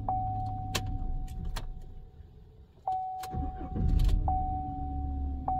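Chevy Silverado pickup engine shut off about two seconds in, then cranked and restarted a second later, settling back to idle, in a test restart watching the battery voltage dip during cranking. A steady high electronic tone from the truck sounds over it, restarting with a click several times.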